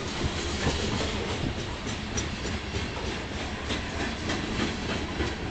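Norfolk Southern freight train cars rolling past, steel wheels clicking over rail joints at an uneven rhythm over a steady rolling noise.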